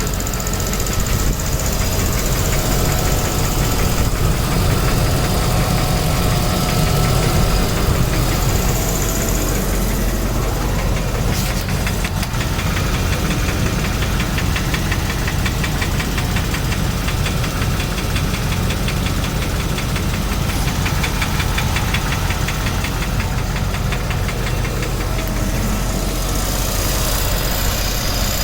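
2001 Land Rover Discovery 2's engine running steadily with a fast, even clicking over the engine note. The clicking is the fault the owner is trying to identify.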